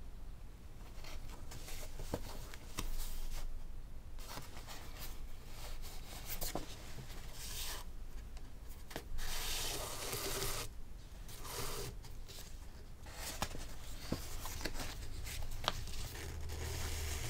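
Sheets of paper rustling and rubbing as a folded signature is opened, laid on the text block and smoothed flat, with the sewing thread drawn through its fold. There are spells of louder rustling, the loudest about nine to eleven seconds in, and a few sharp ticks.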